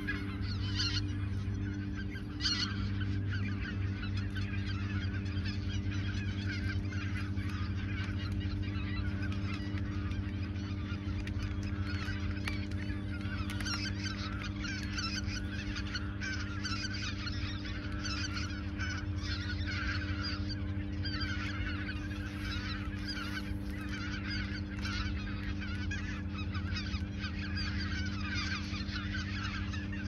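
A large flock of greater white-fronted geese calling, a dense, continuous chorus of overlapping high honks and yelps. A steady low hum lies beneath it.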